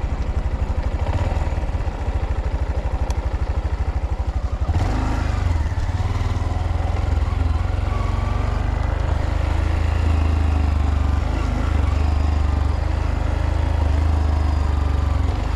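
Honda Monkey's 124cc air-cooled single-cylinder four-stroke engine idling with an even putter, then pulling away about five seconds in and running steadily at riding speed, with wind rush on the microphone.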